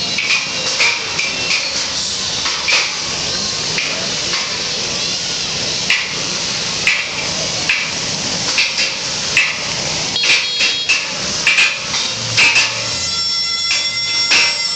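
Sledgehammer blows struck unevenly, roughly once a second, over a steady noisy din. Steady bagpipe-like tones come in near the end.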